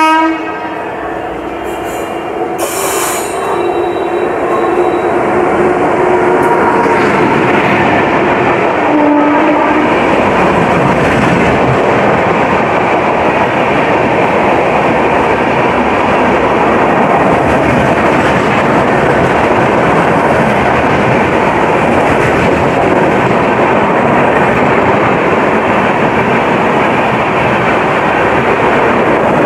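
Indian Railways superfast express train with LHB coaches: its horn sounds as it approaches in the first few seconds, then the coaches pass at full speed with a loud, steady rush of wheel and rail noise.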